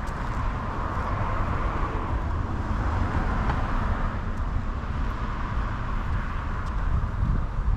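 Street traffic noise: a car's tyre and engine noise swells over the first few seconds and fades, over a steady low rumble.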